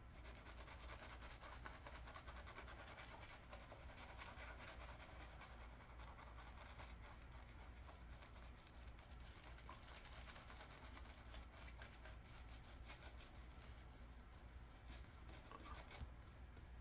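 Faint, rapid scratchy strokes of a Superior Lather Catcher single-edge safety razor with a GEM PTFE blade cutting lathered stubble.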